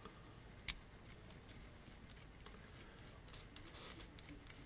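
Faint small ticks and clicks of a T5 Torx precision screwdriver turning a tiny screw into a Flir One Pro thermal camera's case. There is one sharper click under a second in and a cluster of faint ticks near the end.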